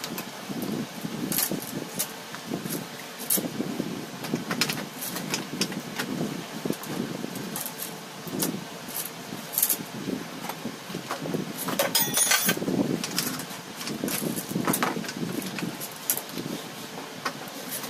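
Small metal tools and chainsaw parts clicking and clinking as they are handled during a repair, irregularly, with a busier patch of clinks about two-thirds of the way in. Under them runs a low, uneven background rumble. The saw's engine is not running.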